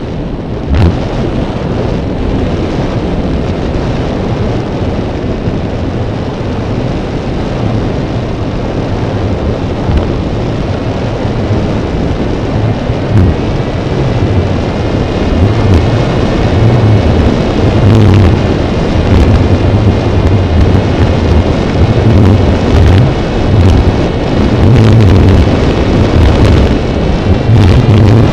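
Wind rushing and buffeting over the microphone of a camera riding on a Raptor RC glider in flight: a steady low rumble that grows louder in the second half, with a faint high whine behind it.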